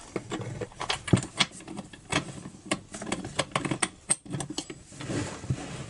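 Irregular metal clicks and taps as a clutch-removal wrench is fitted onto a Husqvarna 240 chainsaw's clutch: steel tool knocking against the clutch and the saw.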